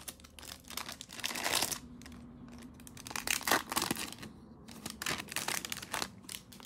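Foil wrapper of an NBA Hoops trading card pack crinkling and tearing as the pack is ripped open, in irregular crackles with louder rustles about one and a half seconds and three and a half seconds in.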